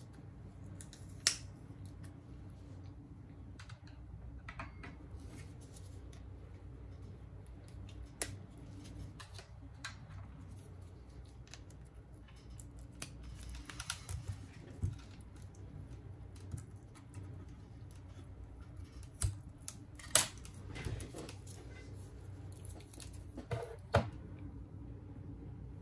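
Scattered small clicks, taps and brief light scrapes of hand tools against a smartphone's parts during a battery repair, over a steady low hum. The sharpest clicks come about a second in, around the two-thirds mark and near the end.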